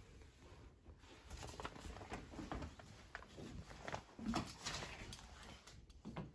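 Faint, irregular taps, clicks and rustling from someone moving about a small room: footsteps and the handling of a phone, with a soft thud about four seconds in.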